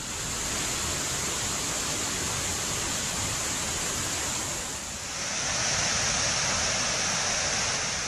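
Waterfall and rocky stream rushing: a steady, even hiss of falling water, a little louder from about five seconds in.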